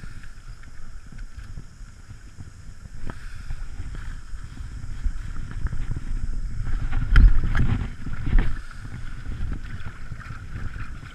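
Muffled low rumble from a Yamaha FX HO jet ski sitting in calm shallow water. A few heavy knocks come about seven to eight and a half seconds in.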